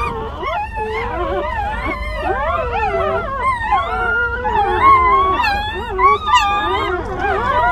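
A litter of newborn puppies crying and whining together, several high, wavering cries overlapping without a break.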